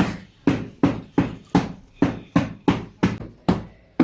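Brisk footsteps on a hard floor: a sharp, evenly spaced knock a little under three times a second, each one fading quickly.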